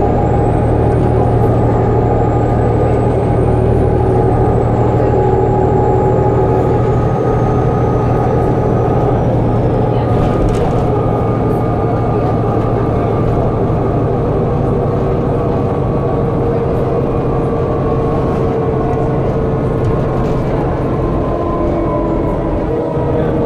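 Volvo B7TL double-decker bus heard from inside its passenger saloon on the move: a steady diesel engine and drivetrain drone with body rattles. A faint high whine glides over the first ten seconds, and the engine note falls slightly near the end.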